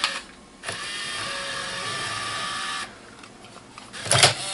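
Camcorder tape mechanism changing cassettes: a click, then a motor whirring steadily for about two seconds, and a few clicks near the end.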